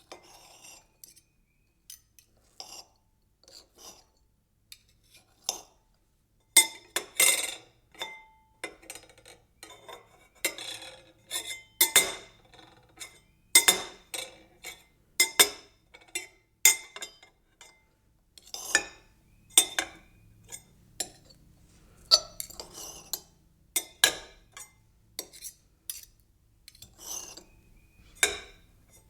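Knife cutting and rattling: a run of irregular sharp clinks and taps, each with a short metallic ring. They come sparsely for about the first six seconds, then thick and fast.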